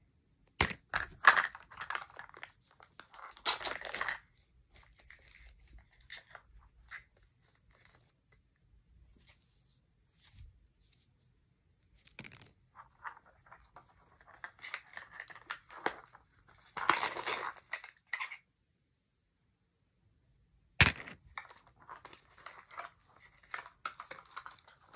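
Small plastic packaging from a 5 Surprise Mini Brands capsule crinkling and tearing as it is opened by hand. The noise comes in irregular bursts with quiet pauses between, and there are a couple of sharp clicks.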